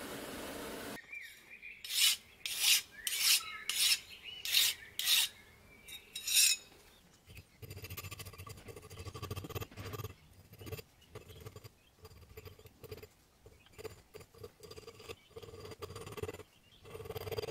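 A run of about seven loud rasping strokes, roughly two a second, then the softer, uneven scratching of a paint marker tip dragged over the cut teeth of an old steel file as a knife outline is traced on it.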